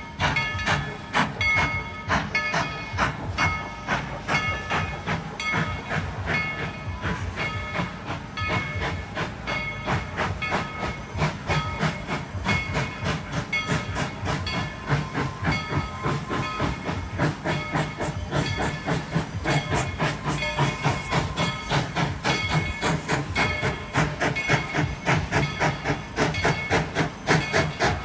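Narrow-gauge steam train rolling: a rapid, steady clatter of wheels and cars with steam hissing and short squeaky tones recurring, growing louder toward the end.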